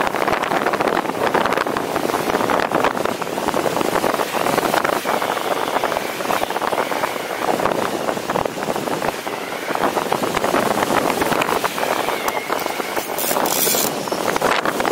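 Rushing airflow on the microphone of a paramotor gliding with its engine cut. The rush swells and eases every few seconds, with a faint wavering whistle above it.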